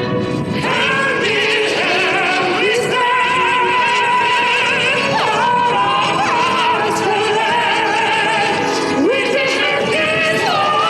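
Live pop vocal performance with band accompaniment: singers hold long, high notes with vibrato, several vocal lines layered together, with a new loud held note coming in about half a second in.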